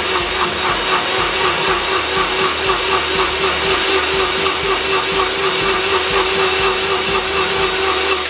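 Single-serve personal blender running steadily at full speed, blending a powdered drink mix into water, with a constant high motor hum; it cuts off suddenly at the end.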